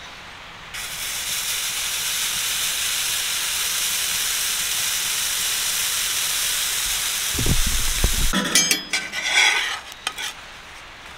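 Pancake batter sizzling steadily in a hot cast-iron skillet, the sizzle starting about a second in as the batter hits the pan. Near the end the sizzle cuts off and a dull knock is followed by a metal spatula scraping and clicking against the cast iron.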